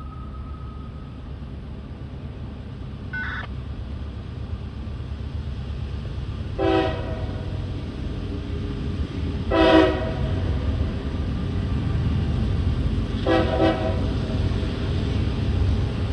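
Diesel locomotive horn on CSX freight train M427 sounding four short blasts spaced a few seconds apart; the first is brief and faint. Underneath is the low rumble of the approaching train, growing slowly louder.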